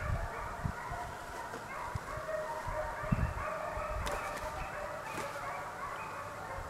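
A pack of hounds baying on a chase, many voices overlapping without a break, as they run a coyote. A few low thumps come near the start and about three seconds in.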